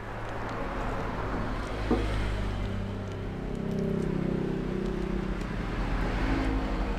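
Motor vehicle engine hum, steady at first and rising in pitch and loudness a little past three seconds in, with a single short knock about two seconds in.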